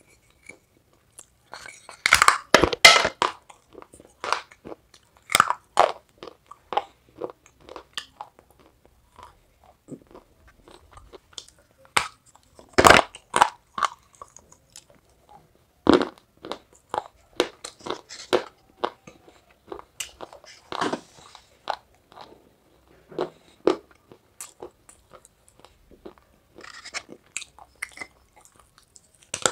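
Someone biting and chewing pieces of a half-baked clay pot: sharp crunches, then gritty chewing clicks. The loudest bites come about two, thirteen, sixteen and twenty-one seconds in.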